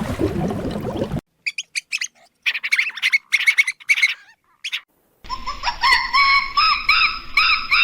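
A low, rough noise that cuts off about a second in, then rapid high-pitched bird chirps, followed about five seconds in by a different bird's series of repeated pitched calls.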